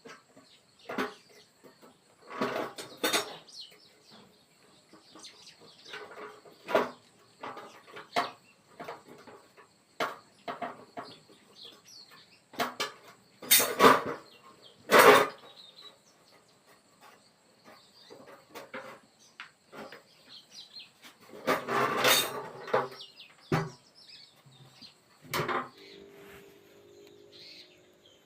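Gas stove parts being handled: irregular metallic clinks and knocks, with a few louder clattering bursts, over a faint steady high-pitched tone.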